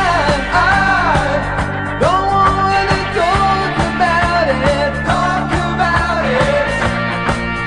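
A song with a sung melody over band accompaniment: sustained bass notes and a steady drum beat.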